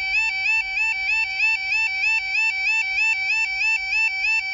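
Level crossing audible warning alarm, the UK 'yodel', sounding a steady two-tone warble that steps between a lower and a higher pitch about twice a second. It warns that the barriers are closing the road for an approaching train.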